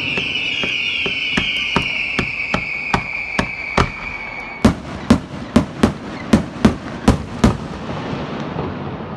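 Fireworks going off. For the first half, whistling fireworks give a high, slowly falling whistle over a steady run of pops, about two to three a second. About halfway through, about eight loud, sharp bangs follow in quick succession, roughly two a second, then it dies down.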